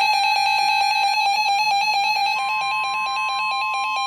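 NOAA weather radios going off together with fast, evenly pulsing alert beeps, several a second. About two and a half seconds in, the steady NOAA Weather Radio warning alarm tone joins, signalling that a warning is being broadcast.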